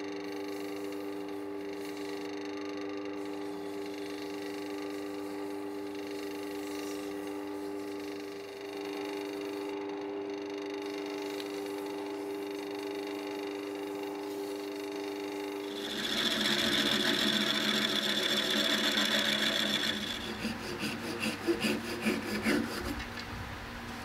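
Small wood lathe running with a steady motor hum while the spinning epoxy-resin knob is hand-sanded. About two-thirds of the way in, a louder rasping sanding noise takes over for several seconds, then breaks into a few separate rubbing strokes.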